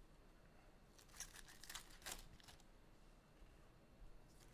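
Faint rustling and crinkling of trading card packaging being handled, with a few soft scratchy rustles between about one and two and a half seconds in.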